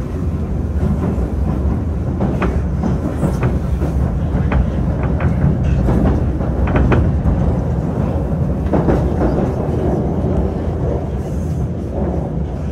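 Moscow Metro 'Moskva-2020' (81-775/776) train running between stations, heard from inside the carriage: a loud, steady rumble with scattered clicks and knocks from the wheels on the track.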